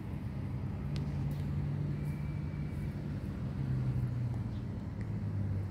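A motor vehicle's engine humming low and steadily, its pitch easing down in a couple of steps over the few seconds.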